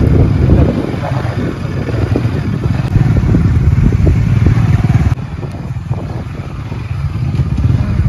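Motorcycle engine running under way on a rough dirt track. It gets abruptly quieter about five seconds in and picks up again near the end.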